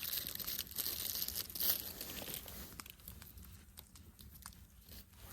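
Crinkling and tearing of a plastic food wrapper, with many short sharp clicks, busiest in the first couple of seconds and then fading.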